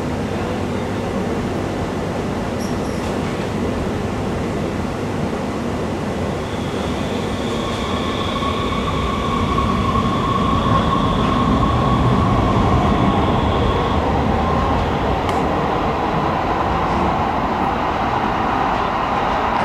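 Muni Metro light-rail train running in the underground station: a steady rumble, with a high two-pitched wheel squeal for several seconds around the middle. The rumble grows louder about halfway through.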